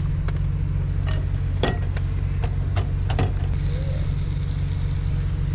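Cooking on a camp stove: scattered clicks and knocks of pans and utensils, and a soft sizzle from about three and a half seconds in as a tortilla with cheese heats in the frying pan. A steady low hum runs underneath.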